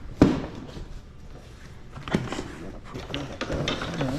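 A sharp knock of a plastic storage tote about a quarter second in, then scraping and rustling as the tote is handled and its contents moved about.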